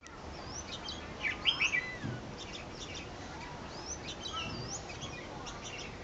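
Red-whiskered bulbuls calling: a run of quick chirps and looping, rising and falling whistles, loudest about a second and a half in.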